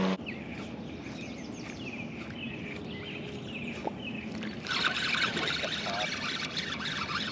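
Outdoor ambience with small birds chirping in quick, short calls. About two-thirds in, a louder rough noise joins.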